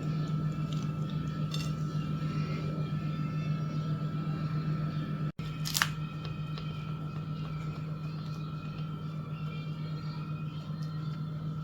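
A steady low hum with a thin, steady high whine above it. About five seconds in the sound cuts out for an instant, and a single sharp click follows just after.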